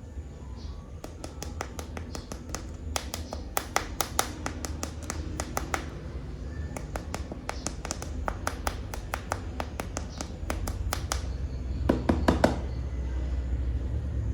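Hard plastic animal toy figures handled and tapped, making quick runs of sharp clicks over a steady low rumble, with a short, louder flurry of clicks near the end.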